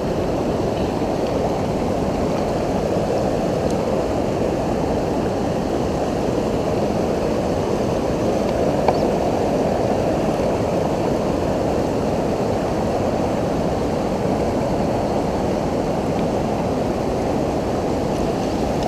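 Steady, low rush of river water running over shallow rapids, even throughout, with one faint knock about nine seconds in.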